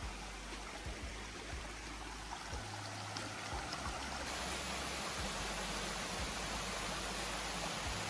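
Shallow mountain stream running over rocks and between pools: a steady rush of water that gets slightly louder about halfway through.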